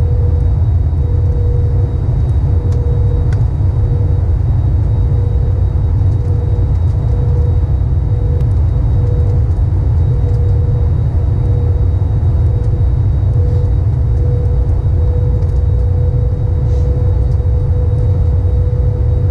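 Airbus A321neo in flight, heard inside the cabin by the wing: a steady low rumble of engines and airflow with a constant hum on top.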